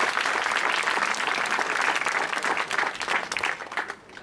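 A crowd applauding, many hands clapping at once; the clapping thins out and dies away near the end.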